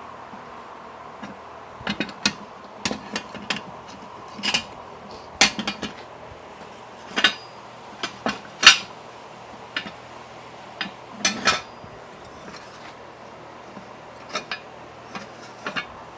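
Irregular metallic clinks and knocks from hand tools and steel parts being handled during repair work, about twenty sharp strikes with uneven pauses between them, starting about two seconds in.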